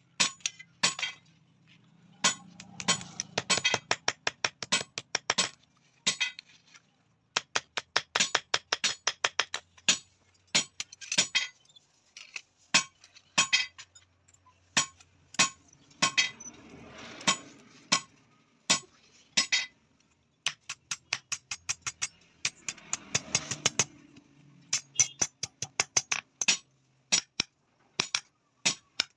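Hand hammer striking metal on an anvil in quick runs of sharp, ringing clinks with short pauses between them, as a thin sheet-metal strip is hammered around the steel rods of a pair of tongs.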